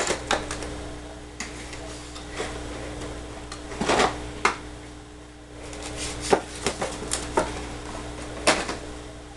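Irregular clicks and knocks of small plastic and die-cast toys and their packaging being handled and set down, with a cluster of them about four seconds in and more in the second half, over a steady faint hum.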